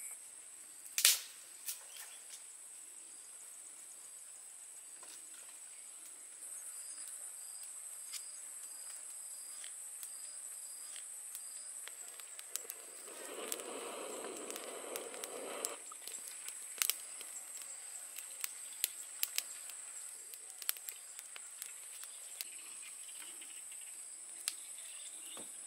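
Steady high insect chirring, like crickets, under scattered sharp clicks and crackles from a wood fire as chilies, onions and garlic are laid among the burning sticks. A sharp knock comes about a second in, and a rush of noise lasts about three seconds in the middle.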